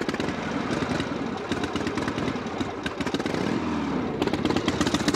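Motorcycle engine running loud just after being started, with a rapid rumbling beat that quickens as it revs up near the end.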